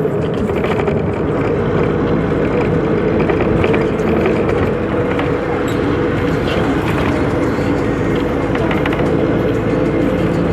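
A motor vehicle running steadily while driving, its engine and road noise a continuous hum.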